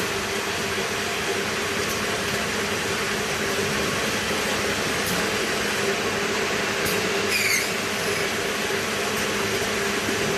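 Automatic egg roll baking machine running steadily: an even mechanical drone with a constant low hum, and a few light ticks now and then.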